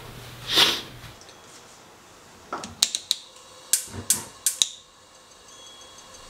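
A brief swish of a towel rubbed over a face, then the spark igniter of a gas stove burner clicking six or seven times in quick, uneven pairs as the knob is turned to light the burner.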